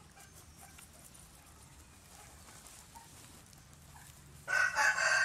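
A chicken gives a loud, sudden call near the end, a strongly pitched cry like the start of a rooster's crow.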